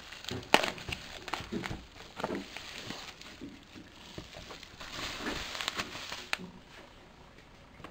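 Bubble wrap crinkling and crackling as a boxed speaker is pulled out of it by hand, with scattered sharp crackles and a loud snap about half a second in. The rustling dies down near the end.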